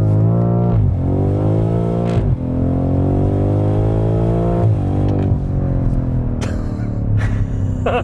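BMW M5 Competition's twin-turbo V8 under full-throttle acceleration, revving up and upshifting three times, the pitch climbing and snapping back down at each shift. There is a brief crack at the second shift, and after the third shift the engine note slowly falls as the throttle eases.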